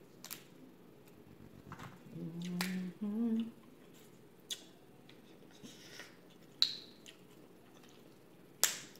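Crab leg shells cracking and snapping in gloved hands, a handful of sharp cracks spread through, with a short hummed "mm-mm" about two seconds in while she eats.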